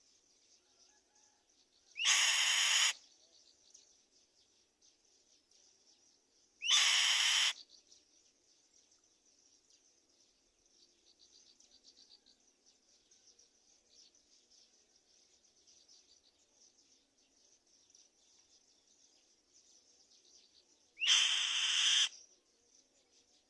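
Black-winged kite giving three harsh, raspy screeches, each about a second long: two a few seconds apart, then a third much later. A faint steady high-pitched insect drone runs underneath.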